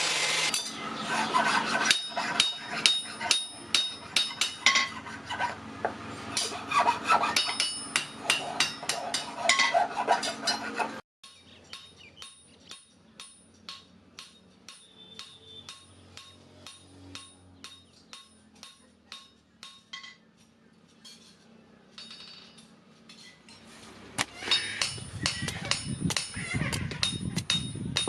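Rapid, light hammer strikes on steel, about three a second, each with a short metallic ring. The strikes turn much quieter about eleven seconds in and grow loud again near the end.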